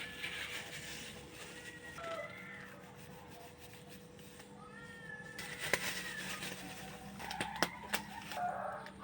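A cat meowing, a few short meows spread over several seconds, with a few sharp clicks or knocks.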